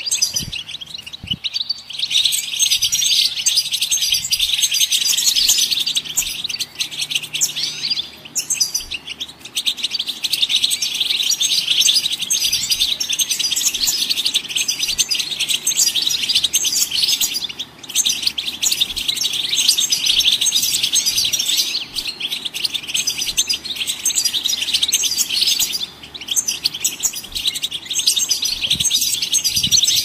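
European goldfinch singing a long, rapid twittering song of high, tinkling notes, broken only by a few short pauses.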